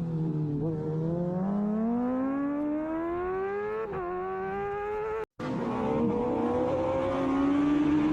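Racing motorcycle engine heard on-board under hard acceleration: the revs dip at the start, then climb steadily, with a quick gear change about four seconds in. The sound cuts out completely for a split second just after five seconds, then the engine picks up, rising again.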